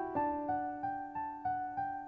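Background music: a gentle piano line of evenly struck notes, about three a second.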